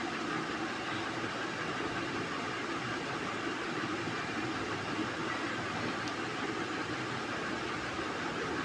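Pot of chickpea-and-potato curry boiling on the stove: a steady hiss with a low hum under it.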